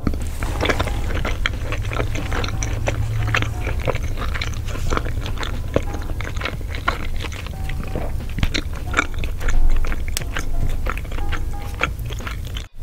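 Close-up eating sounds: chewing and mouth clicks as naan dipped in curry is eaten by hand, with many small sharp clicks throughout. Music plays underneath.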